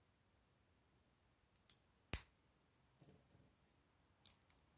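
Plastic Lego bricks and plates snapping together as they are pressed into place by hand: four sharp clicks, a pair about half a second apart around two seconds in with the second the loudest, and two more close together near the end.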